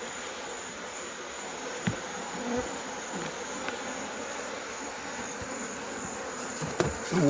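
Steady buzzing of a large swarm of African honeybees flying around an opened hive, with a couple of faint clicks.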